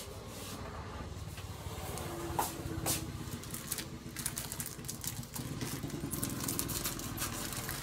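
Water boiling in a lidded pan on the stove, a steady low rumble. Over it comes the crinkle of plastic-wrapped noodle packets being handled, with a few sharp clicks.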